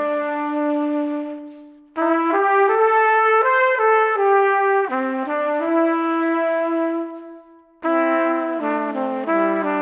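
Background music: a melody of held, stepping notes in several parts. It fades out about a second and a half in, comes back at two seconds, and fades out and returns again near the eight-second mark.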